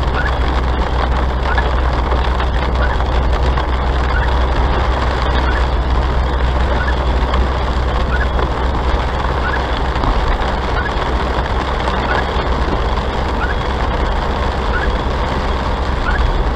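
Steady road and engine noise inside a car driving at about 42 km/h, picked up by the dashcam, with a deep rumble under it. A short faint chirp repeats roughly every second and a bit.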